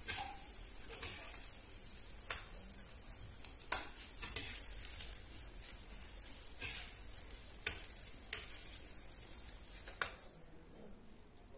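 Sesame-coated potato rolls deep-frying in hot oil in a kadhai: a steady sizzle with scattered sharp crackles, as a metal slotted spoon stirs them through the oil. The sizzle falls away about ten seconds in as the rolls are lifted out.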